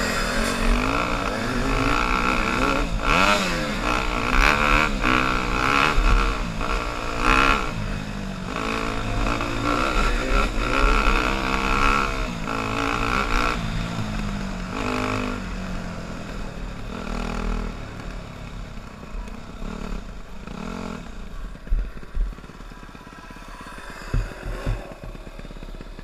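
Yamaha dirt bike engine revving up and down as it is ridden hard along a dirt trail, its pitch repeatedly rising and falling. The engine eases off in the second half, with a few sharp thumps near the end.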